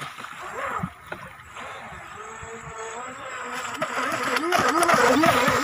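Brushless motor of a Volantex Atomic tunnel-hull RC speedboat whining across the water, its pitch wavering with the throttle. It is quieter early on and grows louder through the second half.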